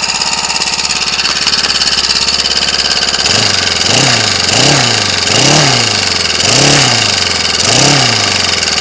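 Ryobi 29cc four-stroke trimmer engine running steadily on a test bench, kind of running lean on its stock carburetor, which has no adjustments. From a few seconds in, its sound swells and fades about five times.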